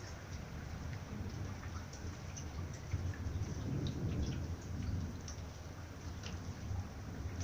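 Rain falling during a thunderstorm, with scattered drips ticking, under a low rumble of thunder that swells about halfway through.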